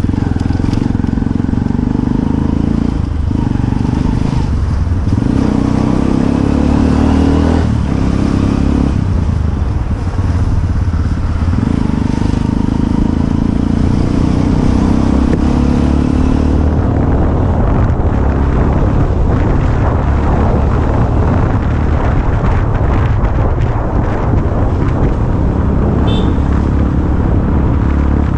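Motorcycle engine running under way, ridden from the saddle. The engine note eases off and picks up again several times in the first half.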